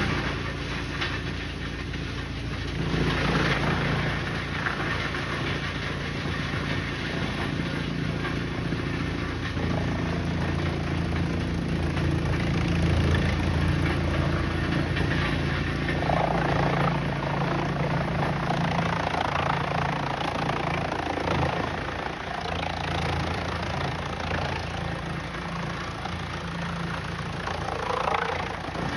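Heavy machinery running, a steady low engine hum with mechanical noise over it, getting louder about three seconds in.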